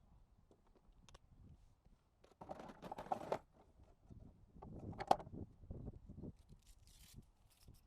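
Kayak paddle strokes in the water: two swishing splashes a couple of seconds apart, over a faint low rumble.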